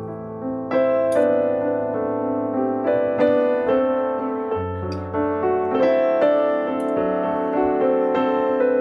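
Background instrumental music: a piano melody of struck notes over held bass notes, the bass changing about halfway through.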